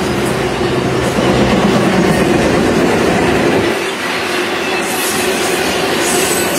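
Intermodal freight train's cars, trailers on flatcars and double-stack containers, rolling past on steel wheels with a steady loud running noise and some clacking on the rails; the deepest part of the sound thins out about four seconds in.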